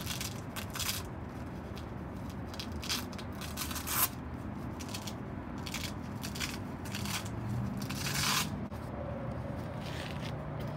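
A series of short scraping, rustling strokes, like wiping and handling with a rag or paper during cleanup, the loudest about four and eight seconds in, over a low steady hum.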